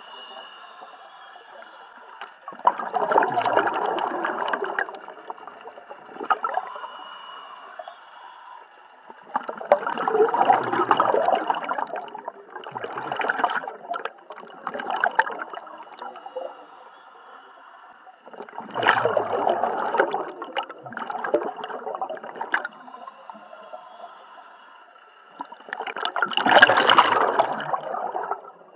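A scuba diver's exhaled breath bubbling out of the regulator underwater, in four bursts of about two to three seconds, one every seven or eight seconds, with quieter bubbling and a faint steady high tone between them.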